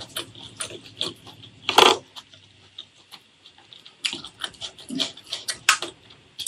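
Close-miked chewing of food: wet mouth clicks and smacks at an uneven pace, with one louder, longer wet burst a little under two seconds in.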